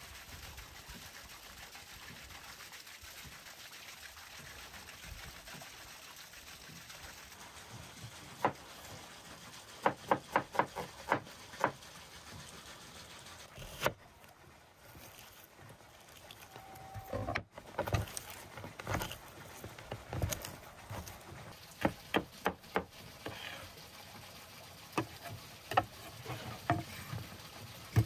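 A cleaver chopping red onion on a wooden cutting board: sharp knocks on the wood, including a quick run of about six chops, with scattered single chops after it. Before the chopping starts there is a steady background hiss.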